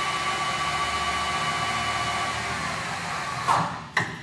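Microweily 16S gap-bed lathe running with a steady gear whine over a rushing noise. Near the end it winds down and stops with a knock and a sharper click.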